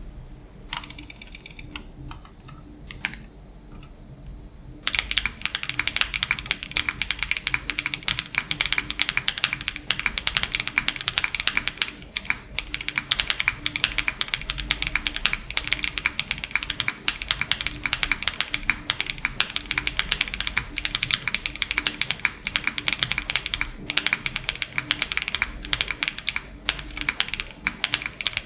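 Typing test on a Tenet70 mechanical keyboard with Gateron KS3 switches fitted with Kailh Pro Burgundy stems, mounted on a polycarbonate plate. A few scattered key presses come first, then fast, continuous typing from about five seconds in.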